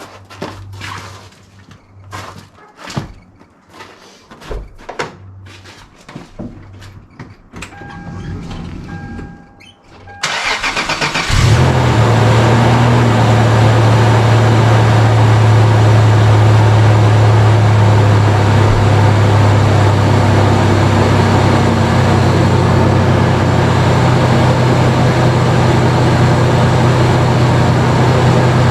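Scattered clicks and knocks of connectors and parts being handled, and a brief beeping chime. Then a 1998 Toyota Tacoma's 3.4-litre V6 cranks for about a second, catches and settles into a steady, loud idle on freshly replaced ignition coils and spark plug wires.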